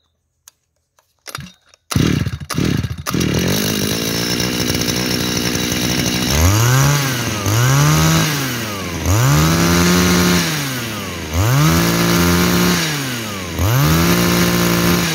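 Shindaiwa S231 two-stroke brush cutter engine catching after a few clicks about two seconds in and idling, then revved hard five times, each rev rising and falling in pitch. It runs crisp and sharp, which the seller takes for a sign of a healthy engine.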